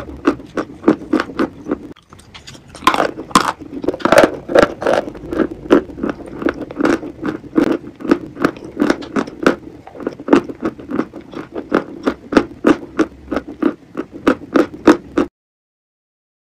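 Close-miked chewing and wet mouth sounds of soft, sticky food: rhythmic clicks and smacks three or four times a second, with a few stronger bites near the start. The sound cuts off abruptly near the end.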